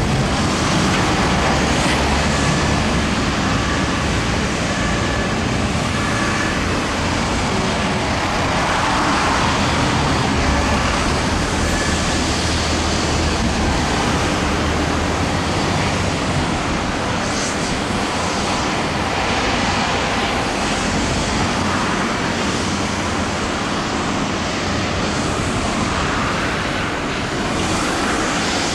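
Steady outdoor background noise, a dense rumble and hiss typical of distant traffic, with a few faint short high tones.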